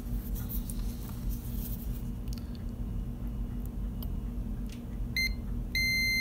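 Multimeter continuity beeper sounding, a short beep and then a longer steady high beep near the end: the probes showing the wire now connects to its pad. A steady low hum runs underneath.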